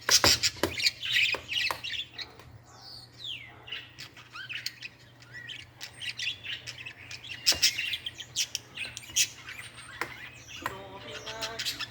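Birds chirping and squawking in short high calls, some gliding down in pitch, with several sharp clicks among them over a steady low hum.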